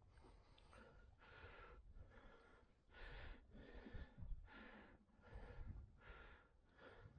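A person breathing heavily and faintly, in and out about every three-quarters of a second, with a low rumble underneath.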